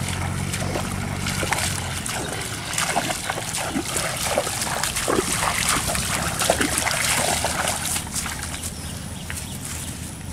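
Legs wading through shallow pond water: irregular sloshing and splashing with each step, easing off near the end as the wader leaves the water.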